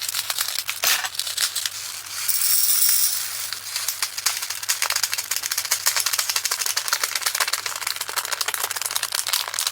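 Small resin diamond-painting drills pouring and rattling into a storage container, a dense run of tiny clicks, with a louder rushing stretch a little over two seconds in.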